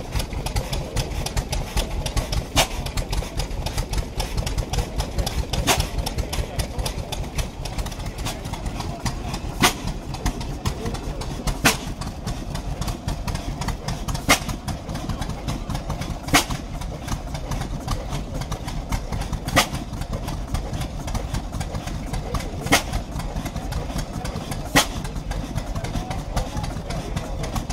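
Vintage single-cylinder flywheel stationary engines running: a rapid low chugging, with a sharp pop every two to three seconds.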